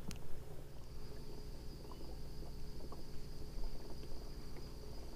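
Insects droning in one steady high tone that comes in under a second in, over a steady low hum.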